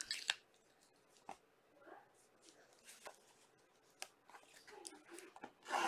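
Hands opening a cardboard trading-card box: a few faint, sharp clicks and taps, then a louder rustle of cardboard or wrapping near the end.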